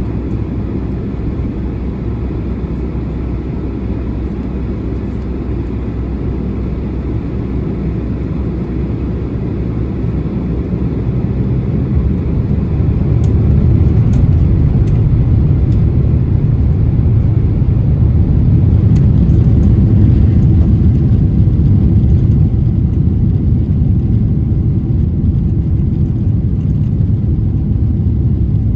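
Cabin noise inside a Boeing 767-300 airliner: a steady low rumble that swells between about ten and thirteen seconds in, then holds loud, with a few faint ticks.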